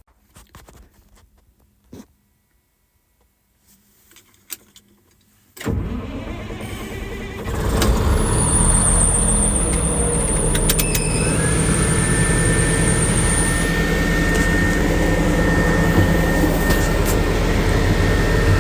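Caterpillar D6T LGP bulldozer's diesel engine starting after a few light clicks and knocks, catching suddenly and settling into a steady, louder idle a couple of seconds later, with a high whine over it for a few seconds.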